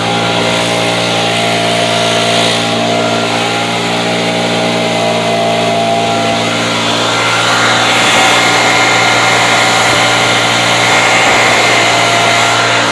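Leaf blower running steadily at high speed, its motor hum under a loud rush of air as it blows snow. The air rush grows a little louder and hissier about eight seconds in.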